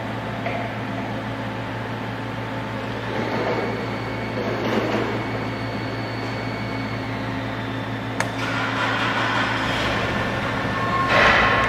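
Steady hum of workshop ventilation and machinery, with light handling noises from metal pump parts. A sharp knock about eight seconds in as the turbocharger's rotor assembly is set down on the steel workbench, and a louder rush of noise with a steady tone near the end.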